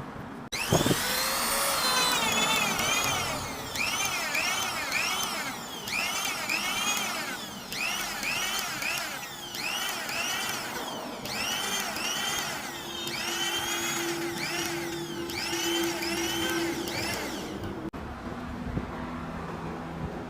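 Power sander spinning up, then worked over a CNC-machined metal surface in repeated passes, its pitch dipping and rising with each pass every second or two. It stops abruptly a few seconds before the end.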